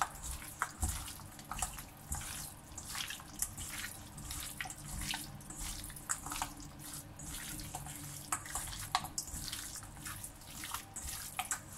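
Hands squishing and turning raw pork rib pieces coated in an oily soy marinade in a stainless steel bowl: irregular wet squelches with light clicks of meat against the bowl.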